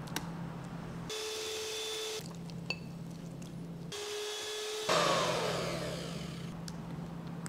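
Electric hand mixer running with its beaters in a bowl of whipped cream and custard, a steady motor hum with a higher whine coming and going. About five seconds in it gets louder and its pitch falls away.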